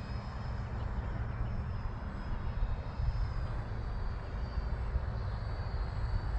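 E-flite Viper 70mm electric ducted-fan RC jet flying, its fan a faint high whine that drifts slightly in pitch, under a loud, uneven low rumble.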